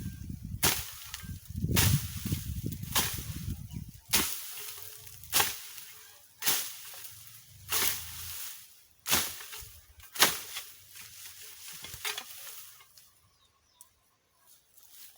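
Steady, rhythmic strikes of a hand tool cutting or chopping brush on the ground, about one a second, around ten in all, stopping about twelve seconds in. Wind rumbles on the microphone over the first few seconds.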